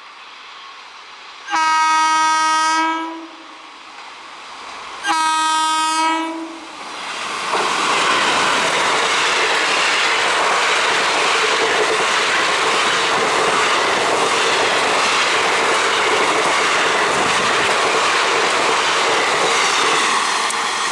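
Train horn sounding two blasts of about a second and a half each, a couple of seconds apart, followed by the train passing close by with a loud steady rush that eases off near the end.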